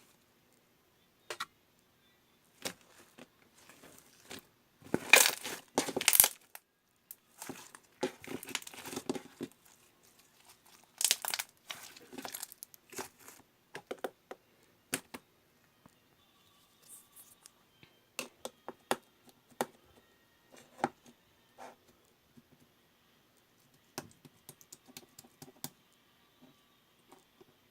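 Pearl slime being squished, stretched and poked by hand, giving irregular sticky crackles, clicks and pops, with louder runs of crackling about five and eleven seconds in.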